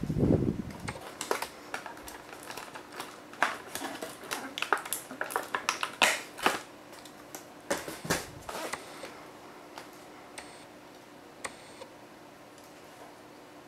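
A plastic toy helicopter is handled as it comes out of its cardboard box: a soft thump at the start, then irregular clicks and rustles of cardboard and plastic, thinning out after about nine seconds.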